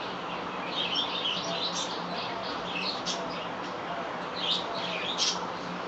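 Small birds chirping in two quick clusters of high calls, about a second in and again near the end, over a steady background hum.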